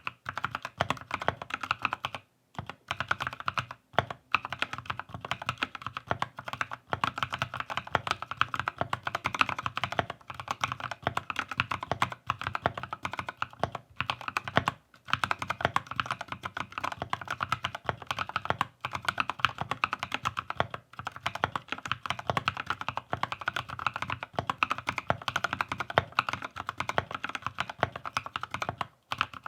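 Steady slow typing on a Keychron K6 mechanical keyboard fitted with NovelKey Cream linear switches: a continuous run of keystroke clacks, broken by a few short pauses.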